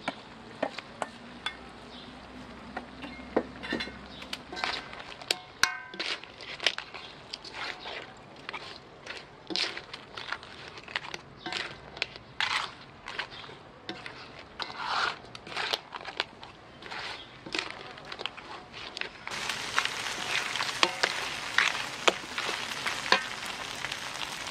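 Wooden spatula stirring and tossing mud crab pieces and glass noodles in a metal wok: repeated scrapes and clacks of shell and spatula against the pan over a frying sizzle. The sizzle gets louder over the last few seconds.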